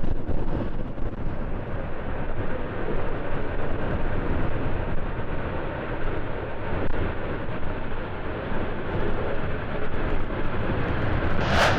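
Airbus A350's jet engines running with a low, even rumble.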